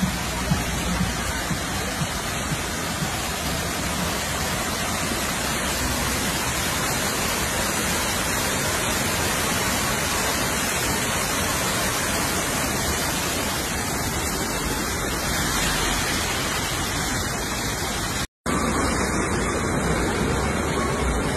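Floodwater rushing down an outdoor stairway in torrential rain: a steady, dense rush of water. It cuts out for a moment near the end and comes back just as steady.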